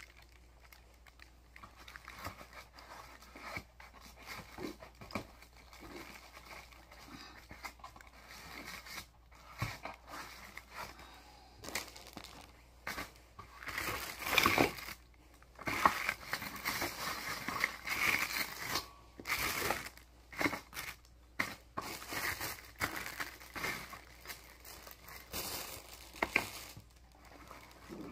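Plastic packaging bags crinkling and rustling as bagged parts are handled, with irregular crackles and light knocks. It is sparse at first and busier and louder from about halfway through.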